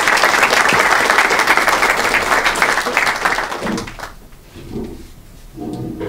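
Audience applauding, a dense patter of many hands clapping that dies away about four seconds in, leaving faint murmured voices.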